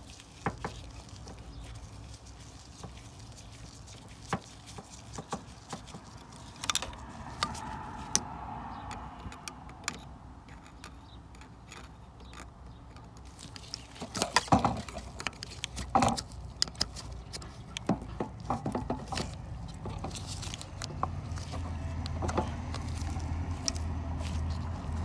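Screwdriver working loose the metal hose clamps on the fuel lines: scattered small metallic clicks and scrapes, with a cluster of louder clicks a little past halfway. A low hum builds near the end.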